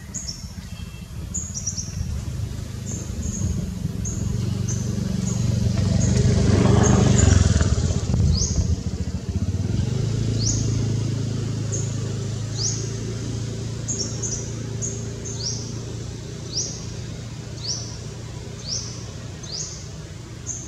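A motor vehicle's engine passes, growing to its loudest about a third of the way through and then settling into a steady low hum. Over it a bird calls again and again with short high chirps, later as quick rising notes about once a second.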